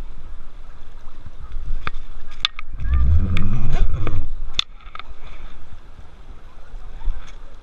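River water rushing and splashing close to an action camera held low over the water from a canoe, with a loud rumbling splash about three seconds in. Scattered sharp knocks are heard throughout.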